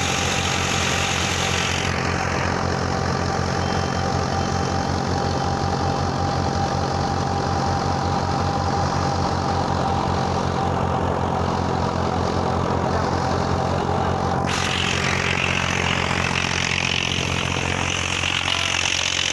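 Tractor diesel engine running steadily while driving a wheat thresher: an even, pulsing engine note with a thin steady whine above it. The hiss on top drops about two seconds in and comes back about fourteen seconds in.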